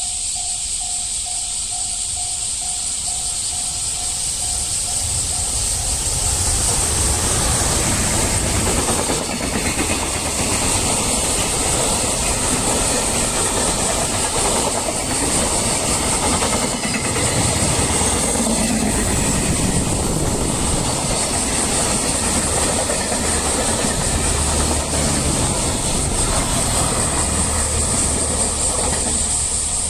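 Japanese level-crossing warning bell ringing in steady pulses, then about six seconds in a long freight train rolls through the crossing, its wagons' wheels running on the rails for over twenty seconds and drowning out the bell.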